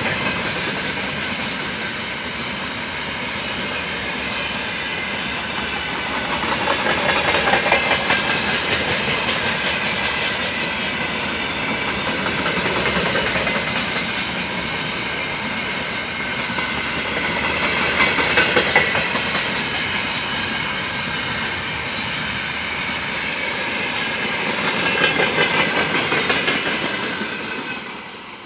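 Freight train wagons rolling past close by: steady wheel and rail noise with clickety-clack over rail joints, swelling louder now and then as wagons pass. Near the end the last tank cars go by and the noise drops away.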